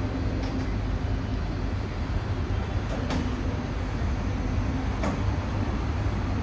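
Lisbon Carris tram running on its rails, heard from the driver's cab: a steady low rumble with a faint hum, and three sharp clicks about half a second, three seconds and five seconds in.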